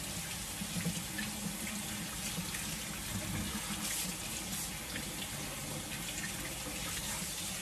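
Kitchen faucet running steadily into the sink, with hands moving under the stream and a few faint clicks.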